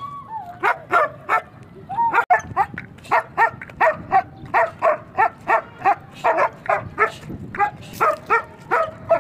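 Afghan Kochi dog barking repeatedly: a few barks, then from about two seconds in a steady run of about three barks a second.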